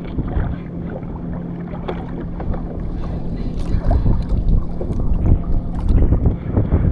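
Water slapping and splashing against a Hobie sailing kayak's hull while under way, with wind buffeting the microphone. The splashing gets louder in the second half.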